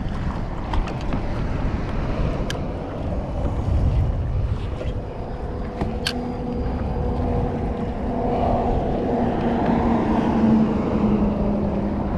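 Wind buffeting the microphone over open water, with a few sharp clicks and, from about halfway, a steady low hum that grows louder toward the end.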